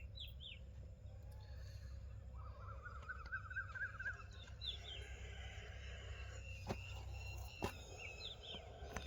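Small birds chirping, with a quick trill in the middle, over a low steady rumble. Two faint knocks come late on.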